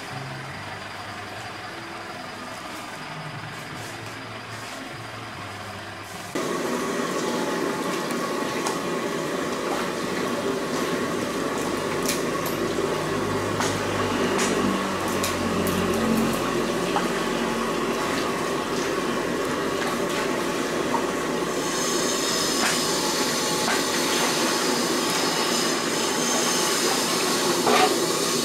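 Steady kitchen din that steps up suddenly about six seconds in, with scattered sharp clicks as kitchen scissors cut through a spiny lobster's shell. In the last few seconds a hiss of water running and splashing over the lobster in a basin joins in.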